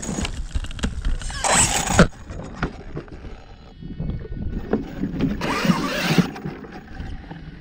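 Electric RC monster truck driven in short throttle bursts over loose dirt. Twice, about a second and a half in and again about five and a half seconds in, the motor revs and the tyres spin in the soil for under a second each time, with scattered knocks in between.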